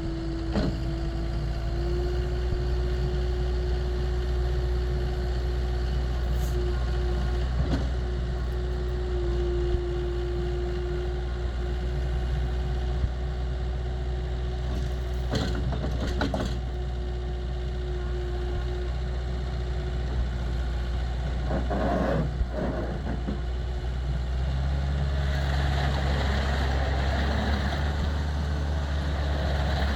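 Takeuchi TL10 tracked skid steer loader's four-cylinder turbo diesel running under work, with a steady whine over it for most of the time and a few sharp knocks. About 25 seconds in, the engine note changes and a hiss rises.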